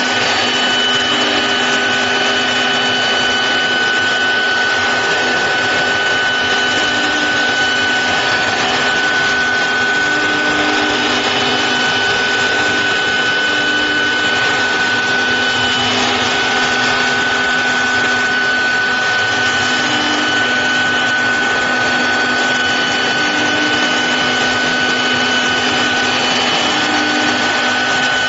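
4-axis stone CNC router running: a steady high-pitched spindle whine over a constant rushing noise, with the whine dipping briefly a few times.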